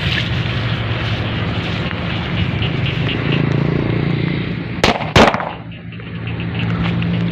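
Two firecracker bangs about a third of a second apart, about five seconds in, the second one louder, over a steady background rumble.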